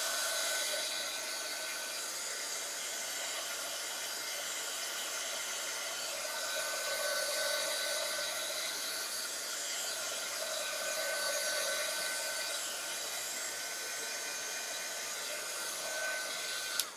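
Handheld dryer blowing steadily on a journal page to dry wet acrylic paint: an even hiss with a thin high whine, cutting off right at the end.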